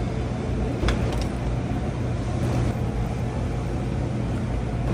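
Steady din of a busy buffet restaurant dining room, with a constant low hum under it and a single sharp clink of tableware about a second in.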